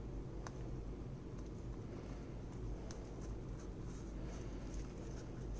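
Faint small clicks and taps of hands working a new rubber O-ring into a brake caliper, spread irregularly over a steady low hum.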